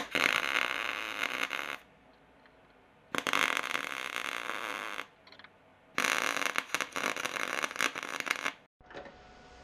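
Three bursts of welding on a sheet-metal body patch panel, each a crackling buzz of about two seconds with short pauses between, laid through zinc primer that the welder says made it almost impossible to weld.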